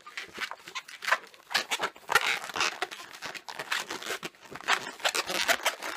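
Yellow 260 latex modelling balloon being twisted by hand into bubbles: a run of irregular rubbing and squeaking of latex against latex and fingers.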